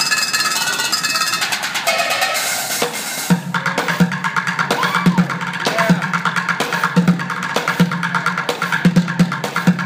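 Street bucket drumming: drumsticks on upturned plastic buckets and metal pans, a fast dense roll for about the first three seconds, then a sudden switch to a rhythmic groove of deep bucket hits with sharper clicks between them.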